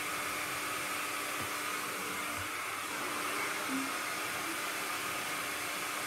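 Hand-held hair dryer running steadily, an even rush of air with a faint hum.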